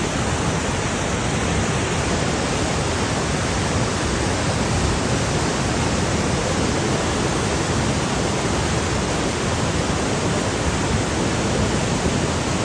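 A river in flood after heavy rain, rushing steadily: a loud, even wash of water noise that does not change.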